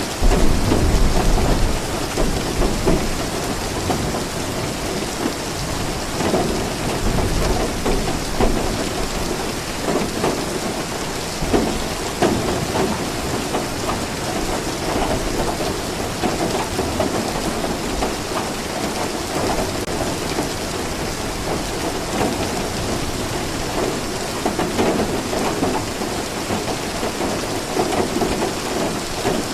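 Steady heavy rain falling, with a low rumble of thunder in the first couple of seconds.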